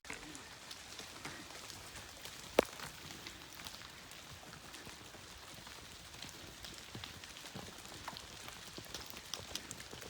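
Ice and meltwater dropping from snow-laden trees: many small scattered ticks and taps, with one sharp knock about two and a half seconds in.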